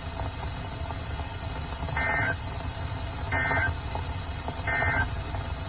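NOAA Weather Radio EAS end-of-message signal: three short two-tone data bursts (SAME 'NNNN'), about a second and a half apart, over a weather radio receiver's steady reception hiss. They mark the close of the weekly required test.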